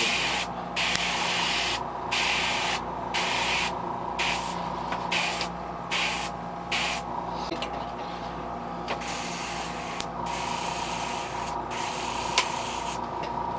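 Airbrush spraying paint onto a fishing lure in a dozen or so short bursts of hissing air, each starting and stopping sharply as the trigger is pressed and released, about half a second to a second and a half long.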